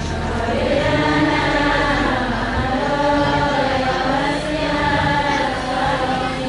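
Many voices singing a sholawat together in unison, with long held notes that shift slowly in pitch.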